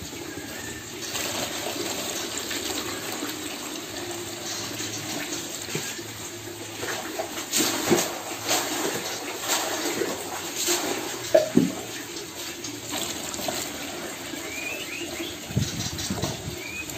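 Water running and splashing into a plastic tub as it is slowly filled, the level rising around a river stone and a brick, with louder splashes in the middle.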